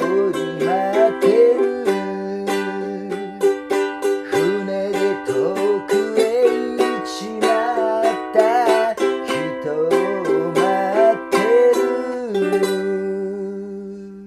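Ukulele strummed in steady chords with a voice singing along, closing a song. A final chord about twelve seconds in rings out and fades away.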